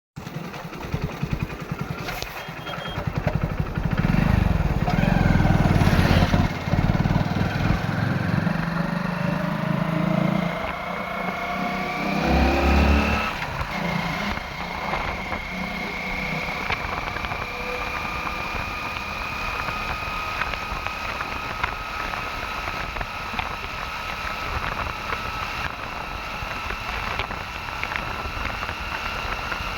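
Engine of construction machinery running with a heavy low rumble, and a whine that rises in pitch over several seconds, then holds steady once the rumble drops away about thirteen seconds in.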